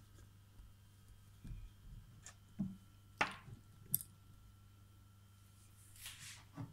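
Scattered light knocks and clicks of things being handled and set down on a kitchen counter, the loudest about three to four seconds in, with a couple of short scrapes over a faint steady hum.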